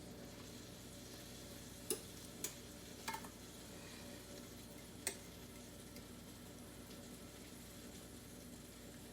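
Aluminum foil being peeled slowly off the bottom of a baked potato gratin, giving a few faint crinkles and crackles over a low hiss. The foil sticks to the gratin.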